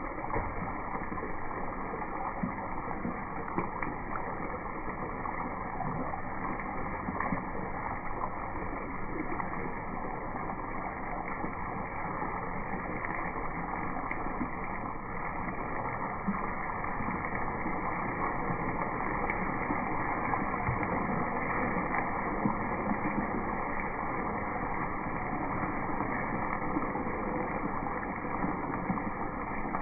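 Steady sizzling of food frying in hot oil in a pan, with small crackles and pops throughout.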